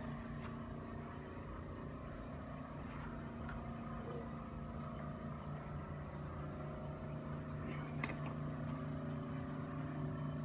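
Steady low mechanical hum, even in pitch, with a single sharp click about eight seconds in.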